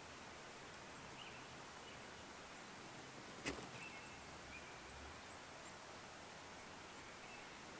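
Quiet outdoor ambience: a steady faint hiss with a few faint high chirps, and a single sharp click or snap about three and a half seconds in.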